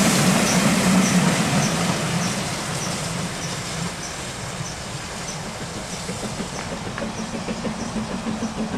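GWR King class four-cylinder 4-6-0 steam locomotive 6024 King Edward I and its coach passing close by, loud at first and fading as they draw away. Over the last few seconds the locomotive's exhaust comes through as a quick, regular chuffing.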